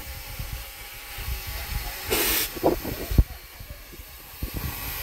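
Steam traction engine standing in steam: a steady hiss of steam, with a short, loud burst of escaping steam about two seconds in.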